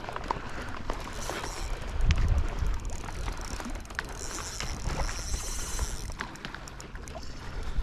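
Fishing reel being cranked in two short spells, a fine whirring ratchet, while a hooked striped bass is fought from a kayak. Wind buffets the microphone, gusting loudest about two seconds in, with scattered small clicks and knocks.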